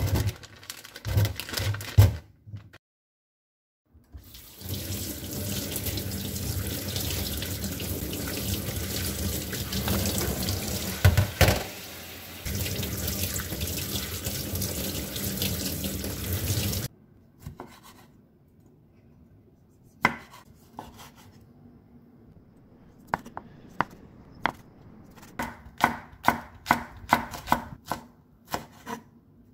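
Cherry tomatoes tipped from a plastic zipper bag into a stainless steel colander in the sink, with rustling and knocks. A kitchen tap then runs steadily onto them for about twelve seconds and stops suddenly. Near the end, a kitchen knife slices green onion on a wooden cutting board, about two strokes a second.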